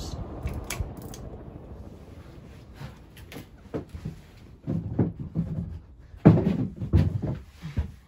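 A Casablanca Zephyr ceiling fan's pull chain clicks near the start, and the fan's low hum fades as it slows. Past the middle come a series of loud knocks and thumps, the loudest about six seconds in.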